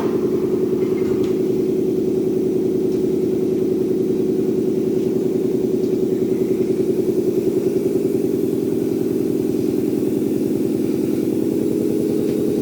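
Steady, loud machine hum, an electric motor and drive running without change, with a faint click right at the start.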